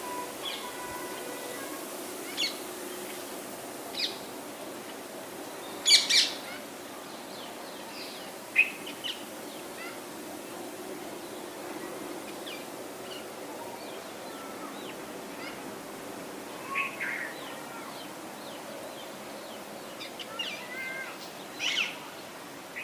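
Small birds chirping: scattered short, high chirps, the loudest about six seconds in and again near the end, over a faint steady background noise.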